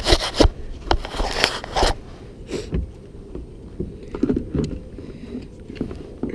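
Water splashing in a landing net held beside a plastic kayak, several loud splashes in the first two seconds, then scattered knocks and scrapes of the net and gear against the hull.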